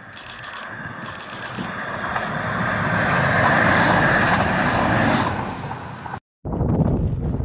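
A regional passenger multiple-unit train passing close by at speed, its rumble and rush swelling as it goes underneath and then easing away. There are two short high-pitched tones about a second apart near the start. The sound cuts off abruptly about six seconds in.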